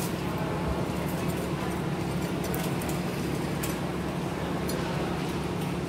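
Steady low drone of a moored fishing boat's engine running at idle, with scattered light clicks and clinks.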